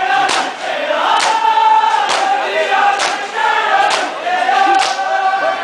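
Crowd of men chanting a noha, a Muharram lament, in unison, with sharp slaps of hands on bare chests (matam) landing together about once a second.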